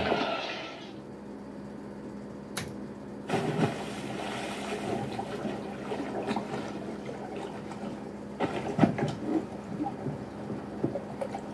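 Casino floor background noise: a low steady hum and haze. A few sharp clicks and knocks come about two and a half seconds in, around three and a half seconds, and near nine seconds.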